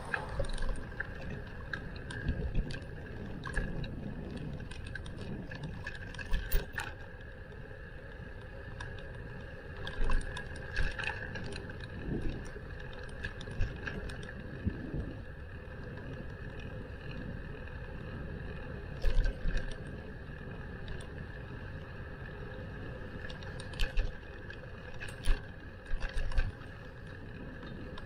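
Riding a bicycle: a steady rumble of wind and tyres on the road, with scattered short rattles and knocks as the bike goes over bumps.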